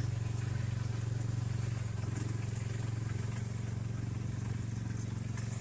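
A small vehicle engine idling steadily: an even, low hum with no revving.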